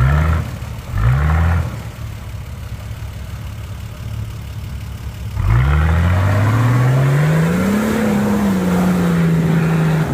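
Off-road 4x4's engine blipped twice briefly, then revved hard from about five and a half seconds in, climbing and held high while the wheels churn through deep mud.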